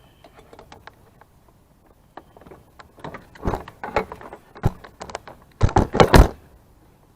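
Clicks and clanks of a jump-starter pack and its clamps being handled and hooked up, with a few separate knocks and then a tight cluster of heavier clanks near the end.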